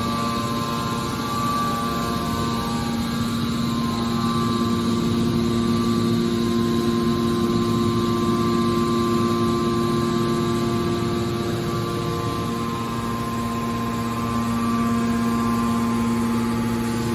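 Hydraulic aluminum can baler running, its electric motor and hydraulic pump giving a steady hum with a few constant tones.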